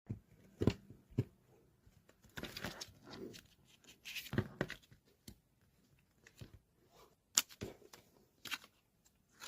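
Irregular handling noises at close range: scattered rustles and crinkles with sharp clicks and taps in between, the sharpest click a little past the middle.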